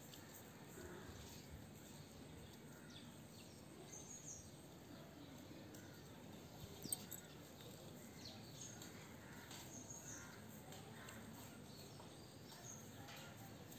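Quiet outdoor background with faint, short, high bird chirps scattered through, and one sharp tiny click about seven seconds in.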